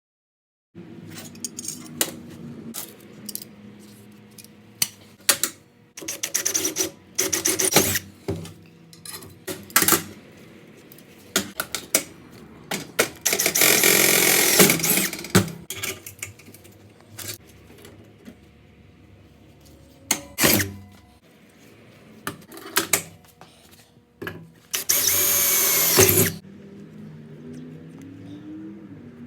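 Short, irregular runs of a handheld power tool motor spinning up and stopping, the longest about two seconds, with clicks and knocks of metal parts being handled between them.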